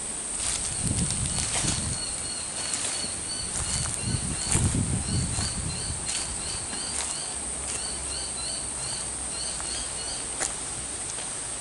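Steady high-pitched insect drone in bushland, with a rapid run of short repeated chirps a few times a second through the middle. Footsteps and brush rustling come through underneath, strongest about a second in and again around four to six seconds in.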